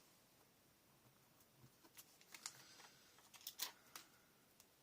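Near silence with a few faint, sharp taps and light paper handling, clustered in the second half: small paper embellishments being picked up and pressed onto a scrapbook page on a craft table.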